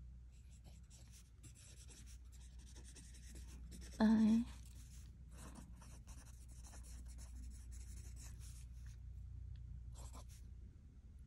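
Pen writing on lined notebook paper: soft scratching in short strokes, stopping near the end. About four seconds in comes a short, louder pitched sound lasting half a second.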